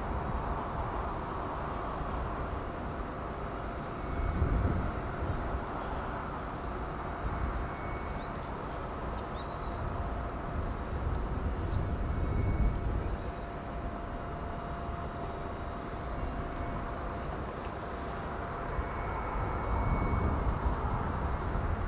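Outdoor harbour ambience: a steady distant hum with a faint steady tone in it, low rumbles swelling up three times, and a few faint high clicks.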